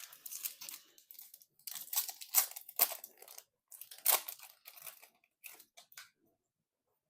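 A foil-lined Magic: The Gathering booster pack wrapper crinkling and tearing as it is ripped open, in a run of uneven crackles that stop about six seconds in.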